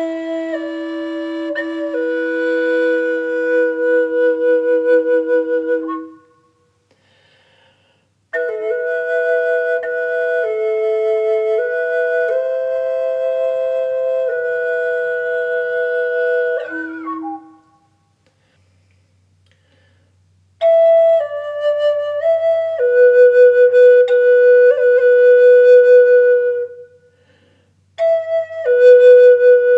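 Black walnut double drone flute in E, Native American style, playing a slow improvised melody of long held notes in four phrases with short silences between them. In the first phrase a steady lower drone note sounds beneath the melody.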